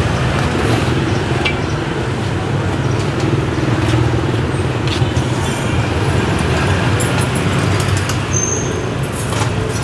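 Steady street traffic noise: a constant low engine drone with a few faint, light knocks.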